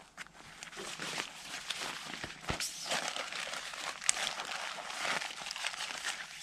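Irregular rustling and crinkling throughout, with a few sharp clicks.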